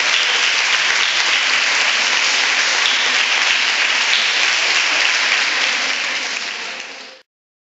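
Audience applauding steadily, fading near the end and then cutting off abruptly.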